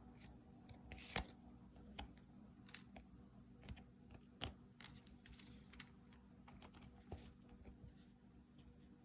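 Faint scattered clicks and light rustles of Pokémon trading cards being handled and flipped through, over a steady low room hum.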